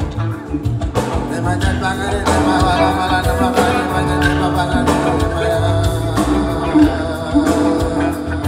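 A live band playing amplified music through stage loudspeakers. A singing voice runs over sustained instrument notes and a steady drum beat.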